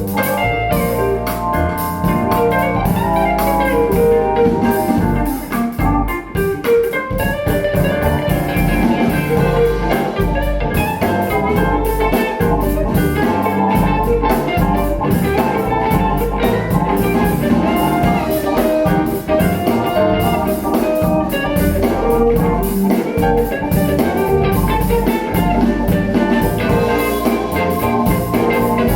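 Instrumental music with drums and bass under a bright melodic line, played back through KEF LS50 bookshelf speakers for a sound demo.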